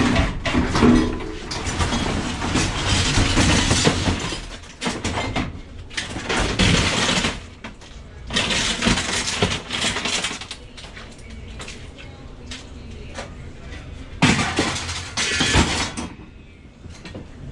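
Clattering, rustling and knocking of scrap being handled by hand, in irregular bouts a few seconds long with quieter gaps between.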